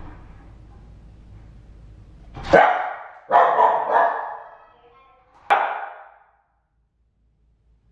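Shiba Inu barking: four sharp barks over about three seconds, starting about two and a half seconds in.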